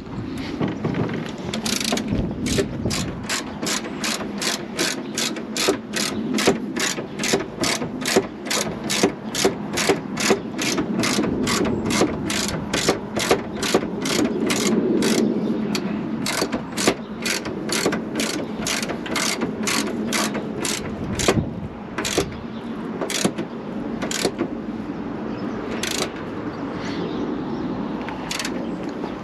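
Hand ratchet wrench tightening a shock absorber mounting bolt on a Land Rover Discovery 2, its pawl clicking at a steady rate of about two clicks a second. The clicks thin out to a few widely spaced ones in the last several seconds as the bolt comes tight.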